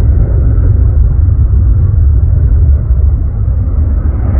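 Airbus A350 airliner on landing approach, its Rolls-Royce Trent XWB turbofans making a steady low rumble.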